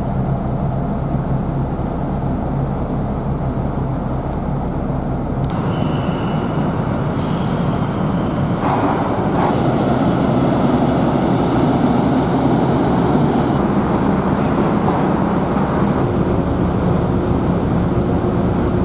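Steady, loud rumble of a vehicle under way, with a low engine hum running underneath; the character of the noise shifts abruptly about five seconds in.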